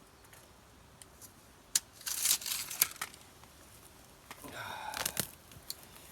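Quiet, then a sharp click and bursts of rustling and crinkling with a few more clicks, like gear or a tape measure being handled, with a longer crinkly rustle near the end.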